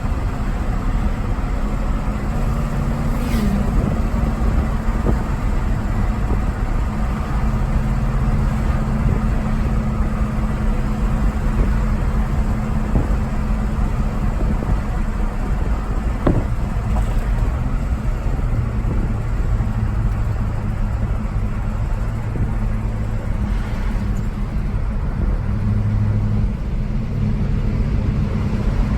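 1972 Chevrolet Monte Carlo with a TH400 automatic transmission running with a steady low hum, with a ticking noise that the owner places in the transmission area on the passenger side.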